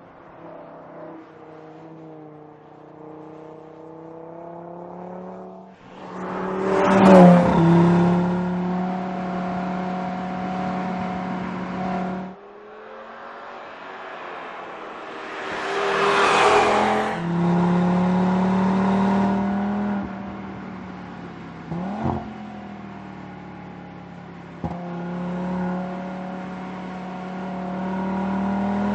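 Audi RS3's turbocharged five-cylinder engine pulling hard through the gears: its note climbs loudly twice, each time dropping off suddenly at a shift, with steadier running in between and two brief sharp clicks in the second half.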